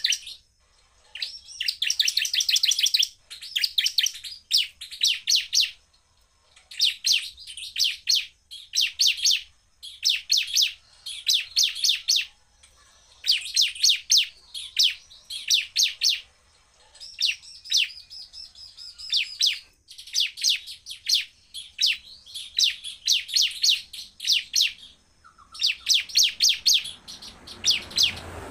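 Bar-winged prinia (ciblek) singing in bursts of very fast, high-pitched repeated notes, each burst about a second long, with short pauses between, again and again.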